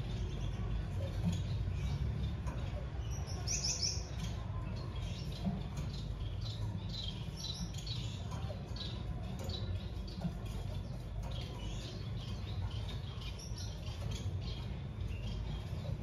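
Small cage finches giving short, high chirps, scattered and repeated throughout, with a brighter run of calls about three and a half seconds in, over a steady low hum.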